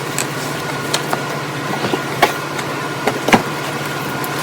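A few light clicks and knocks from handling a toy's cardboard box and plastic packaging, the sharpest near the end, over a steady background hum.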